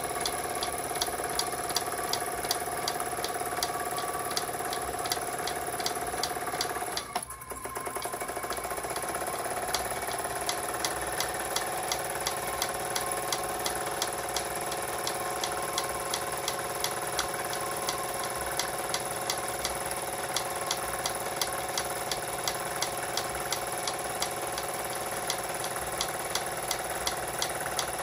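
Jensen 25GR toy steam engine running steadily, belted to its model accessories, with a quick regular ticking and a steady whine from the running machinery. About seven seconds in the sound drops out briefly, then the whine comes back slightly lower and slowly climbs.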